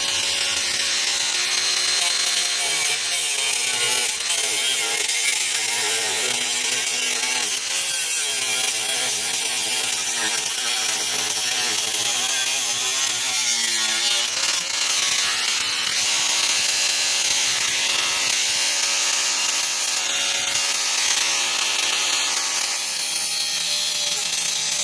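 A cutoff wheel grinding through the steel of a car's suspension crossmember and spring tower. It is a continuous, loud, hissing screech whose pitch wavers as the wheel bites and eases off.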